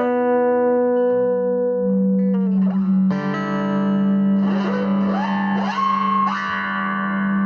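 Electric guitar played through effects, holding long sustained notes. A new chord is struck about three seconds in, followed by several pitch bends.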